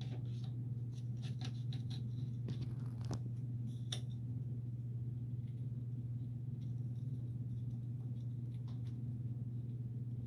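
Scattered light clicks and taps of plastic suspension parts and a metal hinge pin being handled and fitted on an RC truck's rear suspension arm, over a steady low hum.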